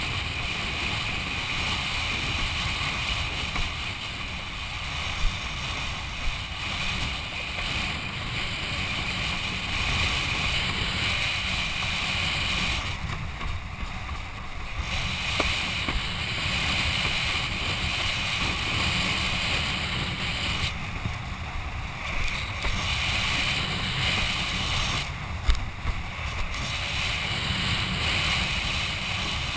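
Wind buffeting an action camera's microphone over the rush and spray of water under a windsurf board planing across chop. The hiss drops away for a second or two a few times, and there are a few short sharp knocks.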